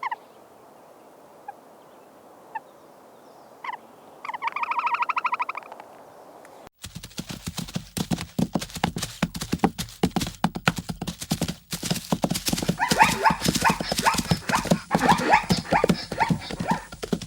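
A quiet stretch with a few short chirps and one rapid, buzzing pulsed animal call lasting about two seconds. It cuts suddenly to zebras on the move: a dense clatter of hooves with barking calls mixed in, which is the loudest part.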